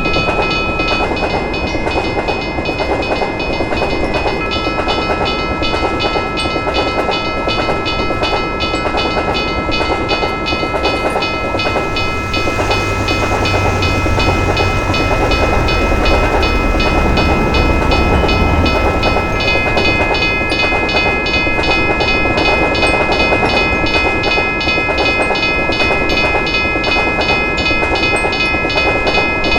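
Railroad crossing bell ringing steadily in a regular repeating pulse while a train passes over the crossing, its wheels clattering on the rails. A low rumble swells midway through the passage.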